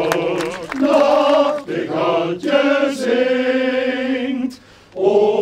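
Men's choir singing a cappella in held chords, with a short break about four and a half seconds in before the voices come in again.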